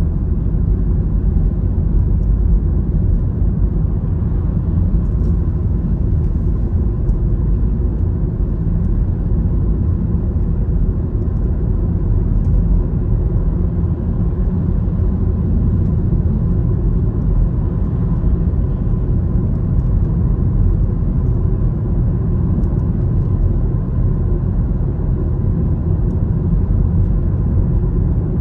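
Steady low rumble of a moving road vehicle: engine and tyre noise at an even speed.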